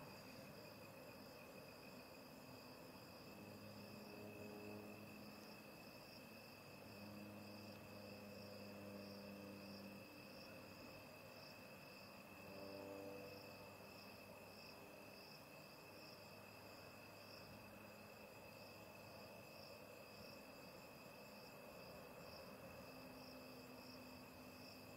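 Faint chorus of crickets: one high, continuous trill and a second, higher trill that pulses rapidly. A faint low hum comes and goes in the middle.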